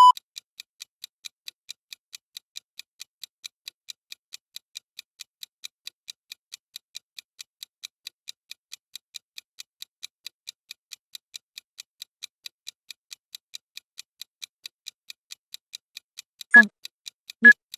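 Interval workout timer ticking steadily, about four ticks a second, counting down a work period. Near the end a recorded voice starts counting down the last seconds.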